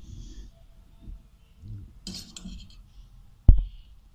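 A metal spoon clinking and scraping against a glass dish as boiled rice is spooned in, with a sharp clink about two seconds in. A heavy, low thump about three and a half seconds in is the loudest sound.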